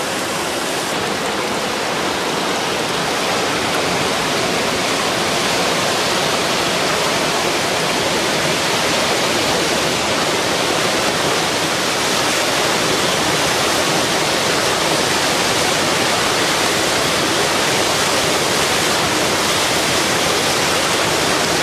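Floodwater in a swollen river rushing and churning at a standing wave: a loud, steady, unbroken rush of water.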